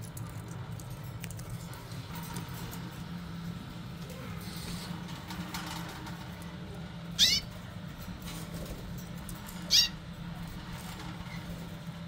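Caged canary giving two short, high calls about two and a half seconds apart, each a quick downward run of notes, with a fainter chirp near the end, over a steady low hum.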